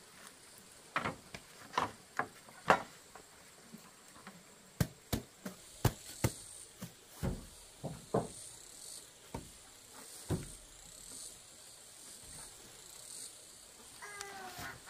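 Irregular sharp knocks and snaps, about a dozen spread over the first ten seconds, over a faint chirring of insects. Near the end, ducks begin quacking with short, downward-falling calls.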